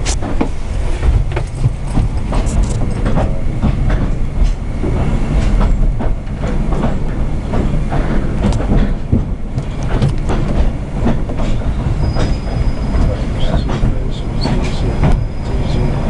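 Narrow-gauge railway carriage running along the track: a steady low rumble with irregular wheel clicks and clatter over rail joints and pointwork. In the last few seconds a faint thin high squeal joins in.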